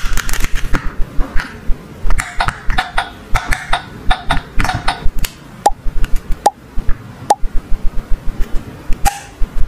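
Hard plastic toy doctor-kit pieces clicking and tapping against each other and the stretcher as they are handled, in quick clusters. From about halfway in come short pitched blips, roughly one every second.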